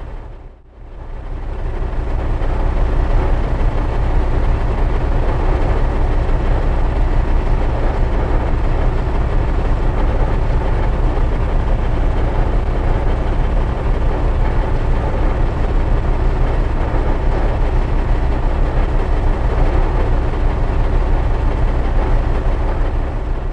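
Sound effect of a large V8 engine, billed as an 8.2-litre Hemi, running steadily with a deep, even rumble. The sound briefly drops away about half a second in, then comes back, and fades near the end.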